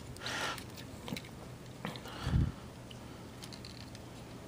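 Hard plastic parts of a Takara Tomy Masterpiece MP-19 Smokescreen transforming robot figure being handled and forced: a scraping rustle, a few small clicks, and a dull thump a little past two seconds in.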